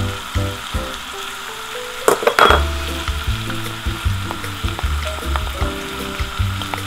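Udon noodles sizzling in a hot frying pan as they are stir-fried with a wooden spoon, with sugar and oyster sauce going in. There is a short louder burst about two seconds in.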